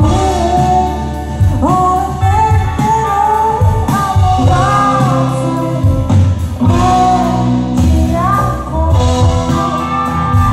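Indie rock song with a woman singing a wavering, held melody over guitar, bass and drums.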